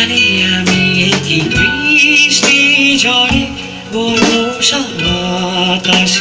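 Band music: a drum kit keeping a steady beat under guitar and a melody line.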